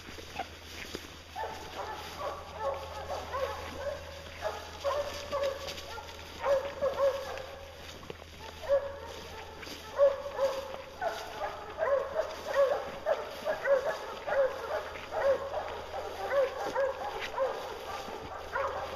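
A pack of hounds barking together, many overlapping barks starting about a second and a half in: the bay of hounds that have a bear treed.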